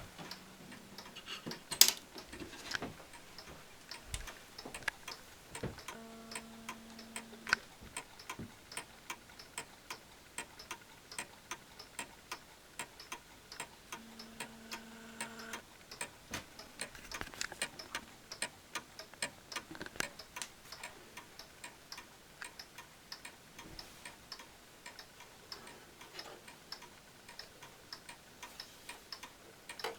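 Mechanical clocks ticking, more than one beat overlapping. A sharp knock comes about two seconds in, and a short steady hum sounds twice, around six and fourteen seconds in.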